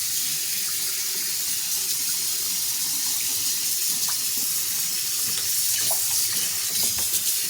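Water running from a tap and splashing into a sink as a puppy is rinsed after a bath, a steady hiss with a few small knocks.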